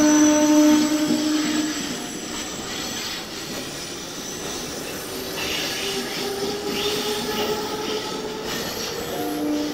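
ICF-built electric multiple unit local train rolling past, its wheels squealing in a steady tone over the rumble of the coaches. The squeal is loudest in the first two seconds, and a fainter, slightly rising squeal comes in about five seconds in.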